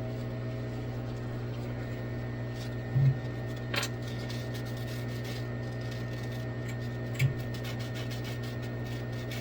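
Steady low electrical hum from the idle Cue Demon CNC machine, spindle off. Over it come a couple of soft knocks, a sharp click and faint scratching of paper being slid under the bit while the Z axis is set by hand.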